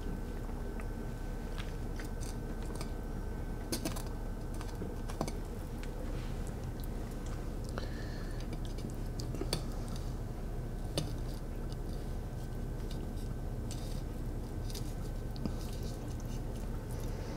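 Fillet knife working along a burbot's rib cage, the blade ticking over the thin rib bones and slicing flesh in scattered small crisp clicks and crunches, over a steady faint hum.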